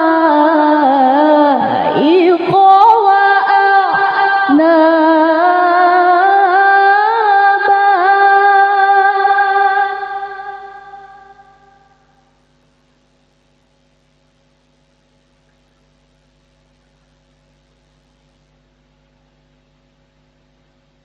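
A woman reciting the Qur'an in melodic tilawah style through a microphone and PA, holding long, wavering, ornamented notes. The recitation fades out about ten seconds in and leaves near silence with a faint steady electrical hum.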